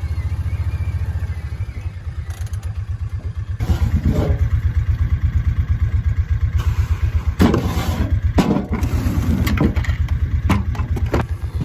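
Farm vehicle engine idling, a steady low rhythmic chug that grows louder about three and a half seconds in. Several sharp knocks and clatters over it as feed buckets are handled.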